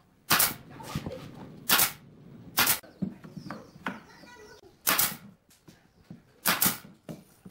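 Pneumatic nail gun firing five times, sharp single shots a second or two apart, driving nails into the joints of a wooden frame.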